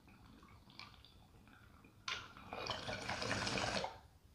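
Water bubbling in a glass bong as a hit is drawn through it. It starts about two seconds in, grows louder and stops abruptly just before the end.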